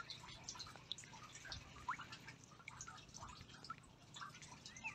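Faint outdoor ambience with scattered short ticks and a few brief chirps.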